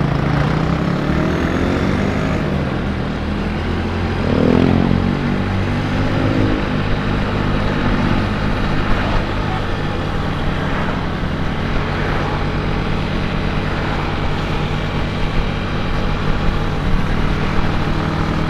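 Yamaha Mio GT scooter's small single-cylinder engine running under way, with wind rush on the microphone; an engine revs up and eases back about four seconds in as the ride picks up speed, then holds a steady cruise.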